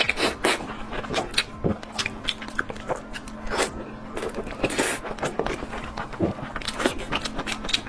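Close-miked eating: irregular crunching and smacking chews and bites, several a second, over a faint steady hum.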